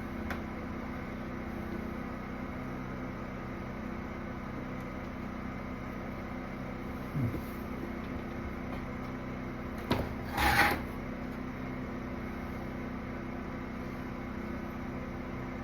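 A steady mechanical hum with several fixed tones, from a running machine or fan. About ten seconds in there is a click and then a short hiss.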